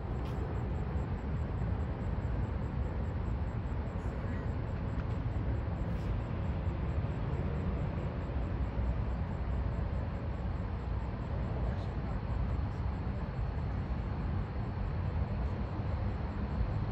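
Steady low rumble of a vehicle on the move, the road and engine noise holding even throughout.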